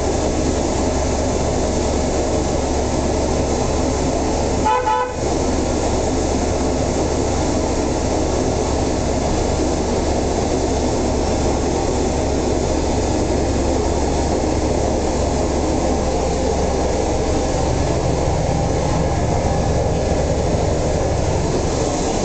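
City bus running: a steady engine drone and road noise heard from inside the bus, with one short toot about five seconds in.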